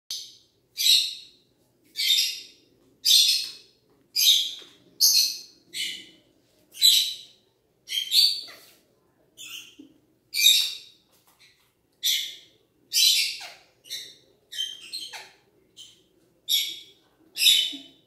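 Parakeet giving harsh, high-pitched squawks, about one a second in an unbroken series.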